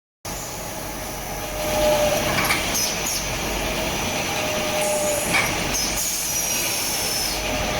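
CNC round pipe punching machine running through its cycle: over a steady machine noise, a short hum comes roughly every three seconds, followed by sharp knocks as the punch strikes.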